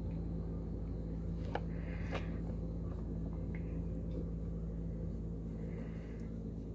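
Steady low hum of room noise, with a few faint short clicks about one and a half to two seconds in.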